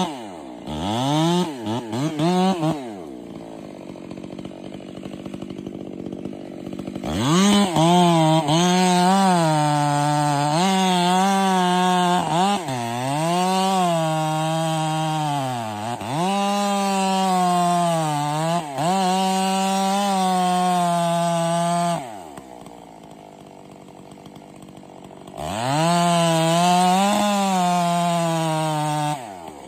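Two-stroke chainsaw running at high revs in several long bursts, its pitch repeatedly dropping and climbing again as the throttle is worked and the chain loads in the cut, with quieter stretches between bursts.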